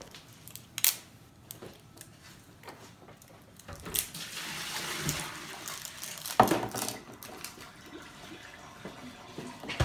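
Water poured out of a container for about two seconds, around the middle. Scattered knocks and clicks from handling, with a sharp knock about a second in and the loudest one right after the pouring stops.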